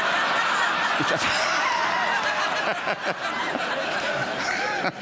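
A large audience laughing together: a dense, steady wash of many voices at once, dipping briefly near the end.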